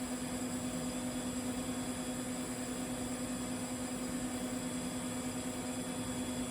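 TIG welding arc running steadily on a 6-inch carbon steel pipe: a continuous even hum over a steady hiss, unchanging throughout.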